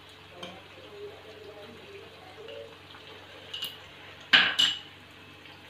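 Cooking utensils knocking against steel pans and a glass bowl while cheese is served into macaroni: quiet handling, then a click and two sharp knocks a little after three and four seconds in.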